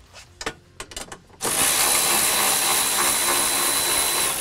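A few sharp clicks of the socket going onto the bolt, then about a second and a half in a cordless power tool fitted with a 14 mm socket starts up and runs steadily with a high whine, backing out a seat-mount bolt.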